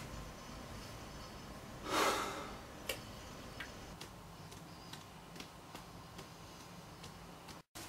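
Quiet room tone with a few faint, scattered small clicks and a short breathy rustle about two seconds in.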